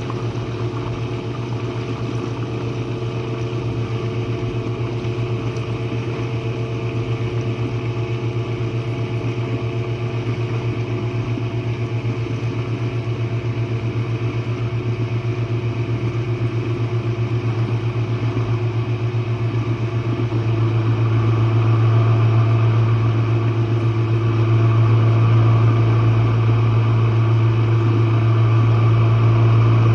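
Jenn-Air dishwasher running mid-cycle, heard from the base of the machine: a steady, loud motor hum that grows louder about two-thirds of the way through.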